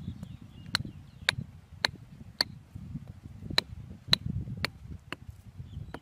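Hatchet blade knocking down through a thin bamboo stick on the ground, chopping it. There are sharp knocks about every half second, with a pause of about a second midway, eight strokes in all.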